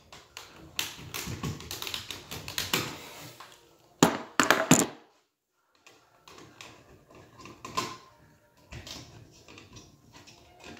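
Small clicks and taps of hand tools and plastic detector parts being handled while wiring a two-wire smoke detector base, with a few louder sharp clicks about four seconds in. The sound drops out to dead silence for about a second just after them.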